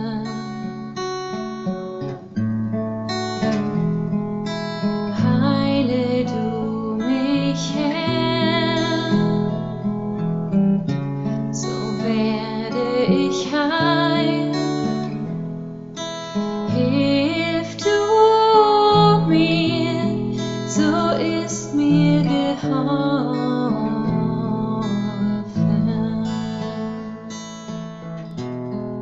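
A slow song: acoustic guitar strumming, with a woman singing over it and holding long notes with vibrato.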